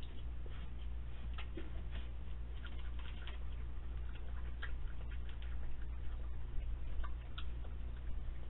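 Raccoon crunching dry cat food from a bowl: irregular small clicks, several a second, over a steady low hum.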